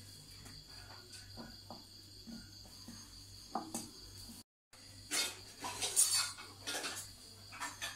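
Bowls and spoons clinking and knocking as they are handled, with a louder run of clatter in the second half. Crickets chirr steadily throughout.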